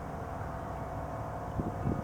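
ACA P-50 tornado siren sounding a steady, faint tone during its alert signal, with wind buffeting the microphone.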